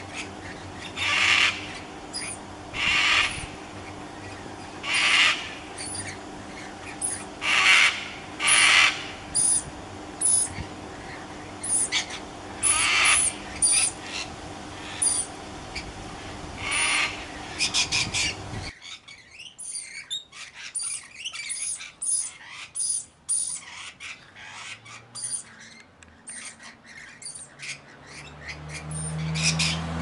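Sulphur-crested cockatoo giving loud, harsh calls over and over, one every second or two. A little past halfway the sound changes abruptly to a quicker run of short, sharp bird chirps.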